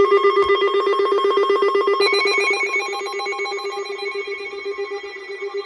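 Electronic alert tone that starts abruptly: a steady, loud pitched tone that pulses rapidly, with higher tones joining about two seconds in.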